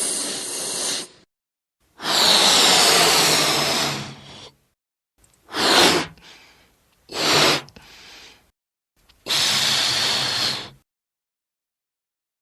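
A string of edited sound effects for a Stand's power: hissing, shimmering bursts of noise, a long one about two seconds in, two short sharp swells around six and seven seconds, and a last long one near ten seconds, each cut off cleanly.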